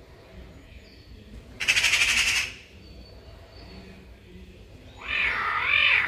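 Caracal calls twice. About two seconds in comes a harsh, rasping call, and near the end a longer, wavering pitched call. Faint small-bird chirps can be heard in between.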